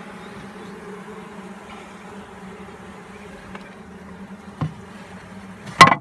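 Honeybees humming steadily in an open top bar hive, with a short wooden knock about four and a half seconds in and a much louder knock near the end as the wooden top bars and board are handled.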